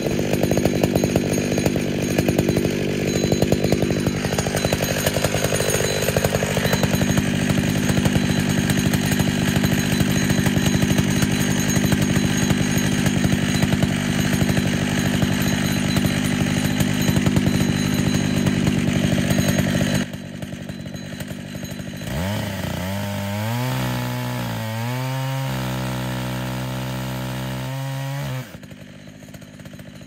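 Two-stroke chainsaw mounted in a chainsaw mill, running steadily while it is tuned. About twenty seconds in, the sound drops suddenly; the engine is then revved up and down in steps.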